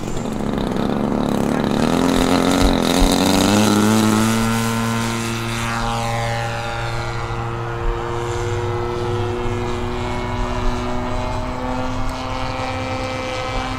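Radio-controlled model airplane's motor and propeller throttling up for takeoff, the tone rising in pitch over the first four seconds. It then settles into a steady drone as the plane climbs out and passes overhead.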